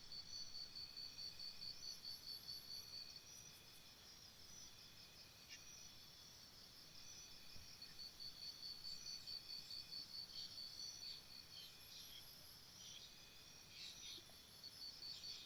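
Cricket chirping: a faint, high, rapidly pulsed trill that stops about three seconds in and starts again about eight seconds in.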